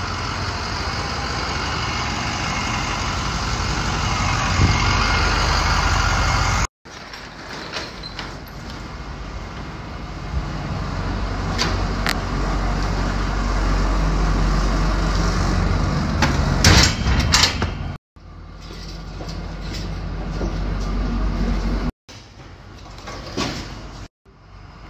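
Heavy truck running with a steady low rumble, and a cluster of sharp knocks about two-thirds of the way through. The sound cuts off abruptly several times.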